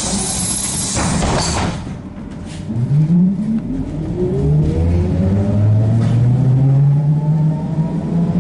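ZiU-682G trolleybus traction motor whining, rising steadily in pitch as the trolleybus accelerates from about three seconds in. A hiss fills the first second and a half.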